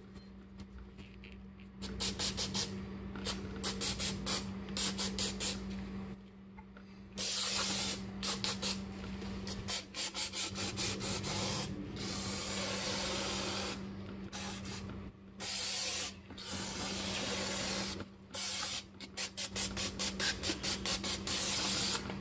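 Aerosol can of brake cleaner spraying down a brake caliper, in many quick short spurts and several longer blasts of a second or two. It starts about two seconds in.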